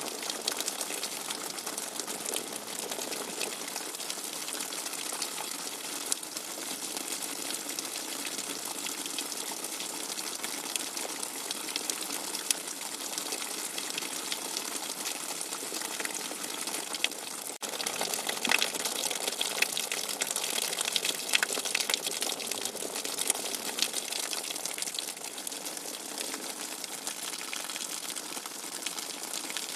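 Hard rain coming down with fast-running water gushing, a dense steady hiss of drops with fine spatters. A brief break about 17 seconds in, after which it is a little louder with sharper spatters.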